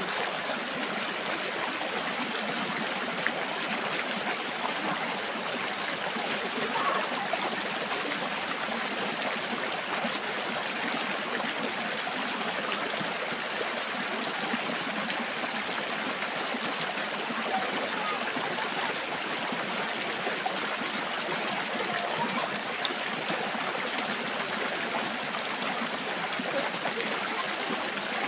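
Shallow rocky river running over stones in small rapids: a steady, even rush of water.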